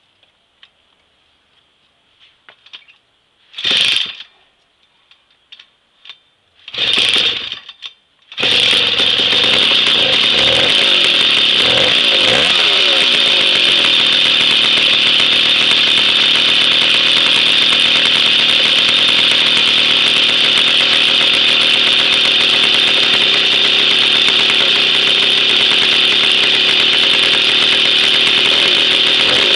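Jawa 50 type 05 moped's 1966 two-stroke 50 cc engine on its first start after a rebuild, on its original contact-breaker ignition: faint clicks, two short bursts of firing, then it catches about eight seconds in and runs on steadily, its pitch wavering a little for a few seconds before settling.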